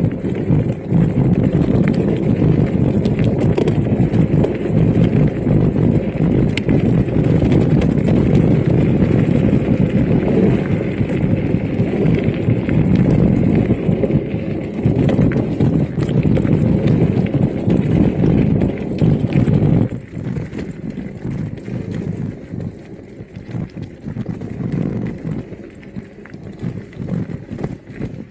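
Electric mountain bike riding over a rough trail: loud rolling noise with dense rattling and knocking, getting noticeably quieter about 20 seconds in.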